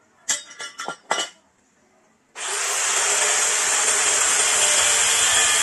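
A few clattering knocks of a metal part being handled, then about two and a half seconds in an electric power tool switches on and runs steadily with a harsh, abrasive hiss as it works on a motorcycle part.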